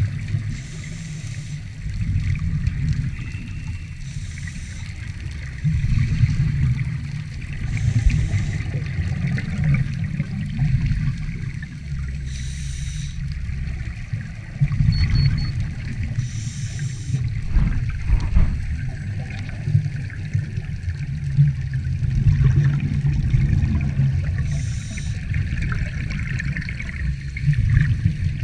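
Scuba regulator exhaust bubbles gurgling underwater in bursts every few seconds, over a constant low rumble.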